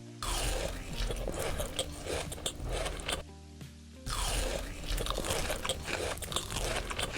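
Close-miked biting and crunching of crisp food, dense with crackles, in two bouts of about three seconds each separated by a short pause, over soft background music.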